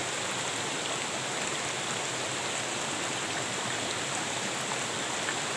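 Shallow rocky stream flowing over and around stones, a steady, even rush of running water.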